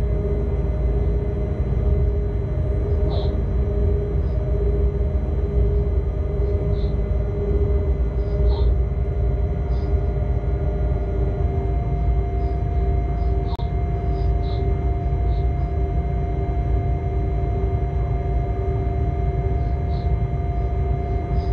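Locomotive running along the track, heard from the cab: a steady low rumble of the running gear with a steady whine from the drive, a second higher whine joining about halfway through. Short high chirps sound now and then over it.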